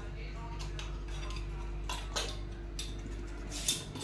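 Several light taps and clinks of a spoon and spice containers being handled while spices are added, the sharpest one near the end, over a steady low hum.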